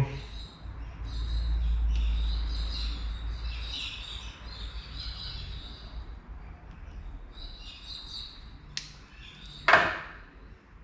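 Birds chirping in the background, with a low rumble for a few seconds early on. Near the end comes a light click, then a louder sharp snap.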